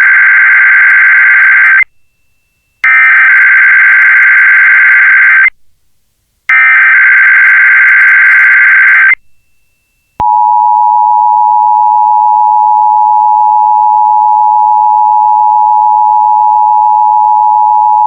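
Emergency Alert System SAME header: three bursts of warbling digital data tones, each about two and a half seconds long with a second's gap between them, announcing a Required Monthly Test. About a second after the third burst, the steady two-tone EAS attention signal starts and holds.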